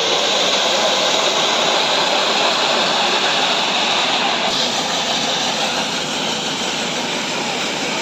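Concrete road paving machine running, its engine and row of poker vibrators making a steady, loud mechanical noise that dips slightly about halfway through.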